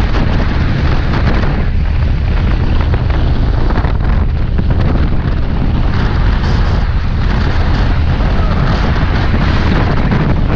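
Loud, steady wind buffeting the microphone of a camera mounted on a moving motorcycle, with a low rumble of the bike and road underneath.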